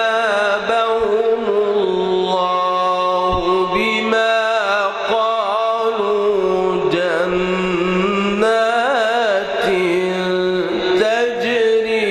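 A man's voice chanting Quran recitation in a slow melodic style, holding long notes with wavering, ornamented turns of pitch.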